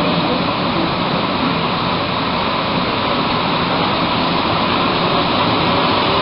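Montreal Metro MR-63 rubber-tyred train running through a tunnel, heard from inside the car: a steady, loud rushing noise.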